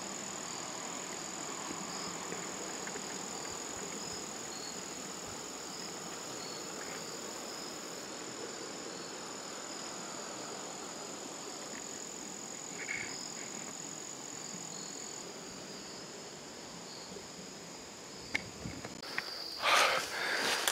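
Steady insect chorus in woodland, a constant high-pitched trilling of crickets and other insects; one of the high tones drops out about two-thirds of the way through. Near the end come a few sharp knocks and loud rustling.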